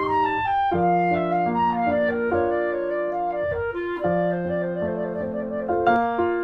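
Instrumental background music: a slow melody of long held notes, with quicker, more clipped notes starting near the end.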